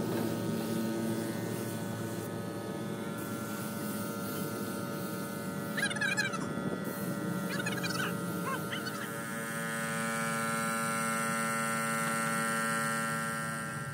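Compressed-air paint spray gun hissing over the steady hum of an air compressor, with a few short bird chirps in the middle.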